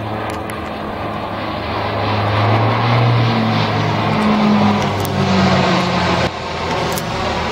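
Jet airliner on landing, passing close: a loud rushing noise with low engine tones that builds to a peak about four seconds in, then drops abruptly a little after six seconds.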